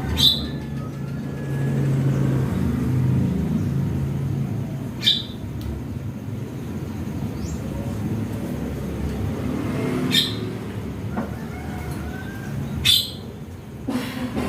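Javan myna (jalak kebo) giving four short, sharp calls a few seconds apart, the last the loudest, over a steady low rumble.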